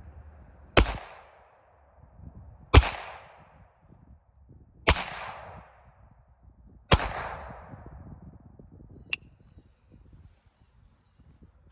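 Raven Arms MP-25 .25 ACP pistol firing four shots about two seconds apart, each report ringing off briefly, with no misfires. A shorter, sharper click follows about nine seconds in.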